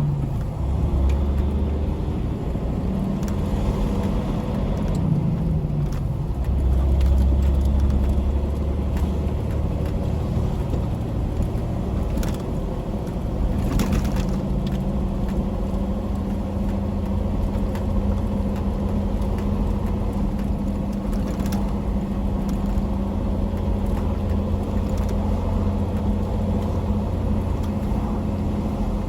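Tractor-trailer truck's diesel engine running steadily while driving, a low drone with road rumble that swells a little early on, and a few faint clicks.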